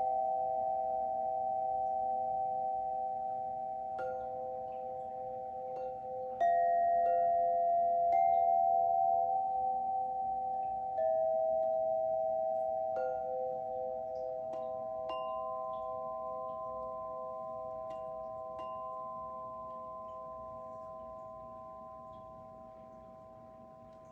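Sound-healing instruments struck one after another, several clear bell-like tones ringing on together in a layered chord. A new tone is added every few seconds through the first half, then the held tones slowly fade away.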